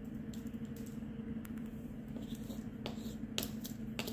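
Scattered light clicks and taps from hands handling a plastic slime jar, with a pen set down on it, the loudest near the end, over a steady low hum.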